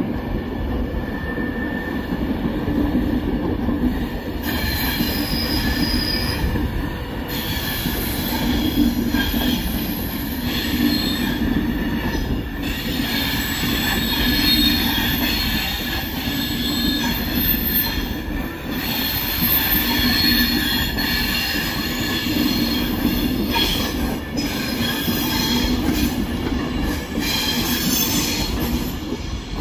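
Train running on the rails with its wheels squealing, high tones that come and go over a steady low rumble.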